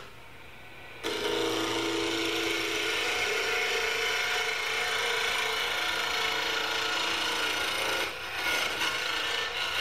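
A turning tool cutting a spinning tzalam hardwood blank on a wood lathe, turning it down to round: a steady scraping hiss of shavings coming off. The cutting starts about a second in, with a brief lull near the end.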